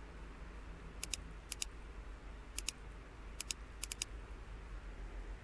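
Computer mouse clicking: five quick groups of sharp clicks, mostly a press and release pair, with three in the last group, over a faint steady low hum.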